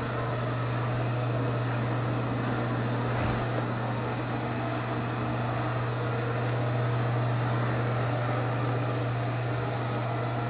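Steady low hum with an even hiss over it, unchanging throughout.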